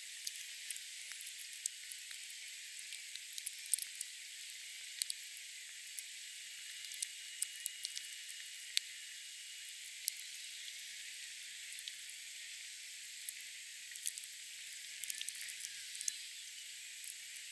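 A thin, high-pitched crackling hiss: a steady hiss with scattered sharp crackles and clicks, and no low sound at all. A faint steady whistle is held for a few seconds in the middle.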